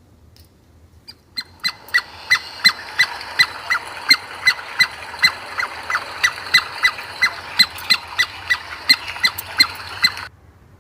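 Squirrel giving a repeated chipping call, about three sharp chips a second over a steady hiss, starting a second or so in and stopping suddenly near the end.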